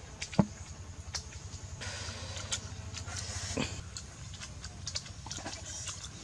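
Eating sounds as eggs are peeled and eaten by hand: scattered small clicks and crackles, with a sharp knock about half a second in and a brief low pitched sound just past halfway.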